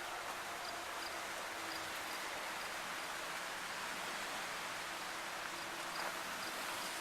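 Water running steadily down a boulder waterfall, a constant splashing hiss. Faint high chirps repeat about twice a second over it.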